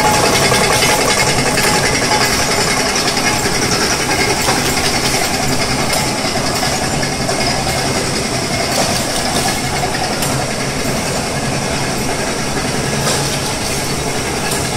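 Automatic vacuum packaging line (INCA60 packer with CVA 20 vacuum module) running: a steady mechanical hum and clatter, with a few light clicks.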